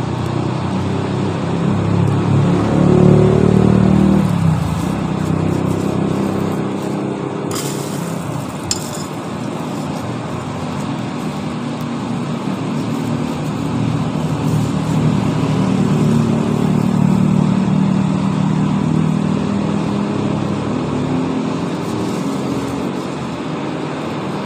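Air blower feeding a charcoal forge, running steadily with a loud hum that swells and rises in pitch a few seconds in and swells again later, as a steel blade is heated to red. Two short sharp clicks come about a second apart partway through.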